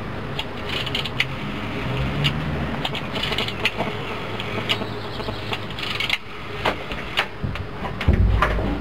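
Old rotary telephone dial, rigged as a door's combination lock, being turned and clicking as it runs back, irregular sharp ticks over a steady low hum. A louder low thud comes near the end.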